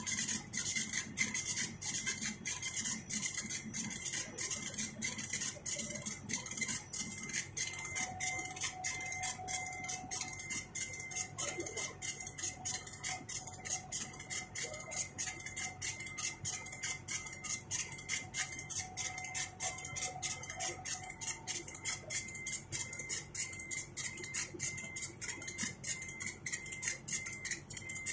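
CNC machine cutting a metal part: a rapid, even ticking, about four a second, over a steady high whine.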